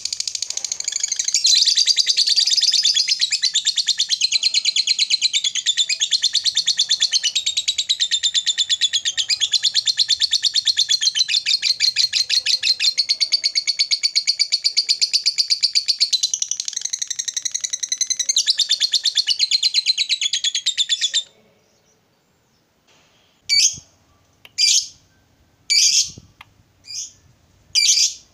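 Fischer's lovebird giving a long 'ngekek' chatter, a very rapid, high-pitched trill lasting about twenty seconds. It stops abruptly, and after a short pause the bird gives five short, sharp calls about a second apart.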